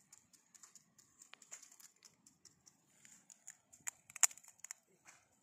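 Close handling noise: scattered light clicks and rustles, with a sharper click about four seconds in.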